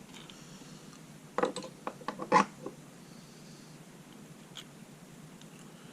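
A quick run of small clicks and taps from lock parts being handled, as plug followers are swapped while an American Lock 1100 padlock core is put back together; the loudest tap comes just before the run ends.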